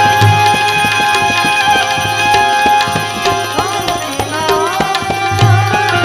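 Instrumental interlude of a Gujarati bhajan: tabla playing a quick, dense rhythm with small hand cymbals (manjira) clashing along, over held steady tones from a melody instrument. A melody line bends up and down in pitch about midway.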